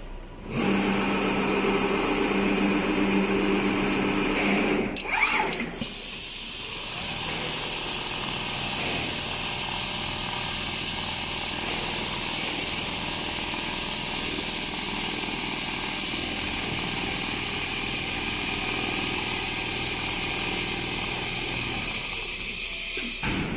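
Automatic large-panel sewing machine running steadily. For the first few seconds it is a low pitched hum, and from about six seconds in it becomes an even, hissier running sound.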